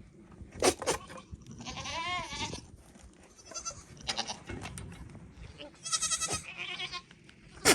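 Nigerian Dwarf goats calling, typical of a buck in rut making courtship noises at does. There is a wavering bleat about two seconds in, short sharp bursts about a second in and again near the end, and rapid stuttering calls between.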